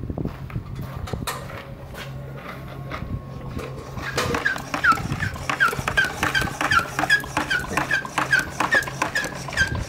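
A steady low hum with a few clicks. From about four seconds in, short high squeaking calls repeat about three times a second, each falling slightly in pitch.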